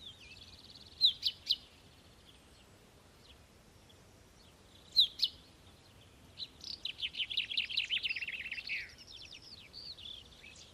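Male common chaffinch singing to attract a female. Short sharp calls come about a second in and again near the middle, then a loud song of quickly repeated notes that descends and ends in a downward flourish, followed by softer chirps.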